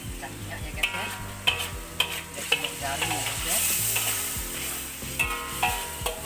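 A metal spatula scrapes and knocks against a steel wok while chili-tomato sambal fries and sizzles in oil. The wok rings briefly after the sharper strikes, and the sizzling hiss swells about midway.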